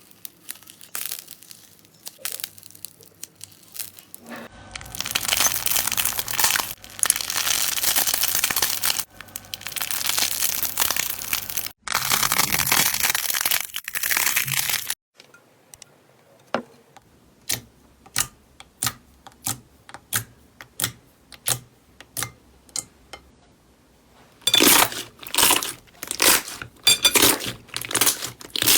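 Slime being worked by hand, giving long stretches of dense crackling. After these come a run of separate pops at about one to two a second, and then louder crackling squeezes near the end.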